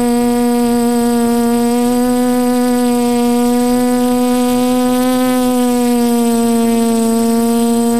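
Drone motors and propellers humming steadily, the pitch rising slightly about five seconds in and settling back down as the throttle changes.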